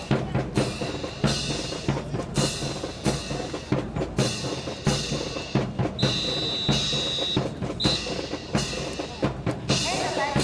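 Drum-heavy music with a steady beat, about three beats every two seconds. A high steady tone holds for about a second and a half a little past the middle, then briefly again.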